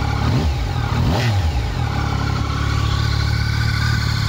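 Yamaha Tracer 900 GT's three-cylinder engine breathing through an Akrapovic aftermarket exhaust, idling in neutral. A single throttle blip rises about half a second in, peaks about a second in and falls back to a steady idle.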